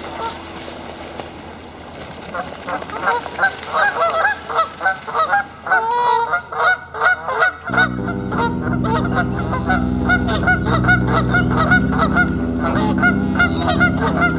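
Canada geese honking in rapid, repeated series as a goose chases rival males off across the water: aggressive, territorial honking. About halfway through, low background music comes in under the honks.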